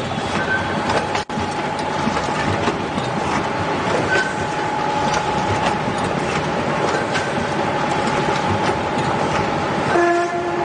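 Automatic packaging machinery running: a steady mechanical clatter and hum with a constant whine and scattered short clicks. A brief pitched, buzzer-like tone sounds near the end.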